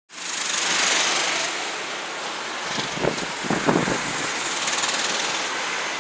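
Go-kart engines buzzing around a track, a steady mechanical racket with a louder spell about three seconds in.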